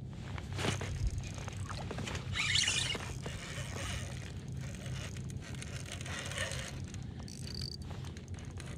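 Handling noise of a spinning reel being cranked and the rod and rig being lifted in: scattered small clicks and rustles, with a brief hiss about two and a half seconds in, over a steady low rumble.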